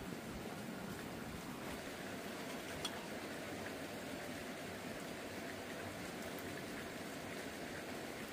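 Steady rain falling, an even hiss of water with one sharp tick about three seconds in.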